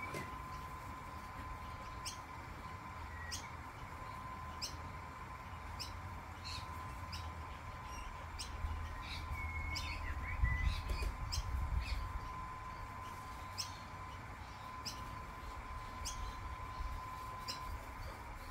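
Dog bubble machine running with a steady high whine, while short high bird chirps repeat about once a second. A low rumble swells about halfway through.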